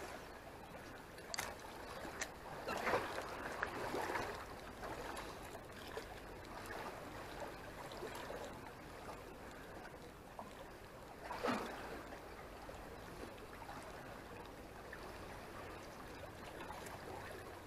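Sea water lapping and sloshing gently among the concrete tetrapods of a breakwater, with a few short slaps, the clearest about eleven seconds in.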